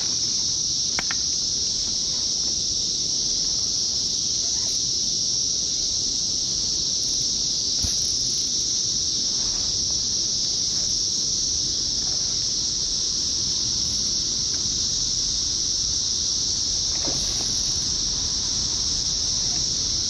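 A cicada chorus droning loudly and steadily in one high, unbroken pitch band.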